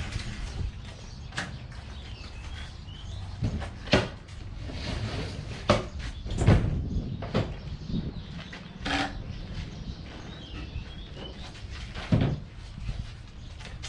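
Irregular knocks and thumps, a dozen or so spread out, the loudest about six seconds in, over a low steady rumble with faint bird chirps.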